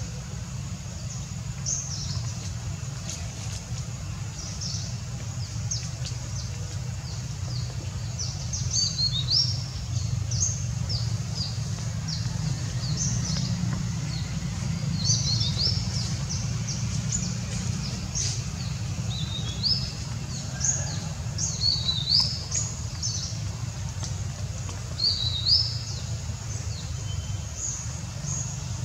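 Birds chirping in short, quick clusters throughout, over a steady low rumble.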